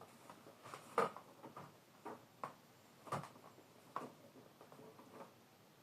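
Latigo leather string being wrapped and pulled tight around a saddle's bucking rolls: faint, irregular knocks and rustles of leather handling, the loudest about a second in.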